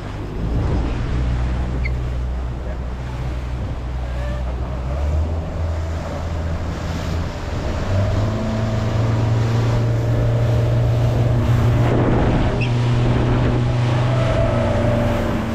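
Tour motorboat's engine running under way, with water rushing past the hull and wind on the microphone; the engine note steps up about five and again about eight seconds in as the boat speeds up.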